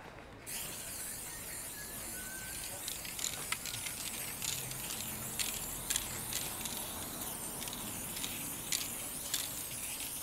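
Aerosol spray-paint can hissing steadily as paint is sprayed onto a cardboard stencil, starting about half a second in, with scattered small clicks through the spray.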